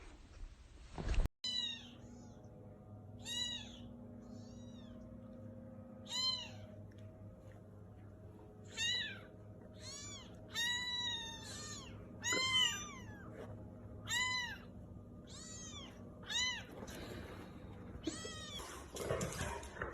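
A small pet giving a string of about fifteen short, high-pitched crying calls, each rising and then falling in pitch, some in quick pairs, over a faint steady hum.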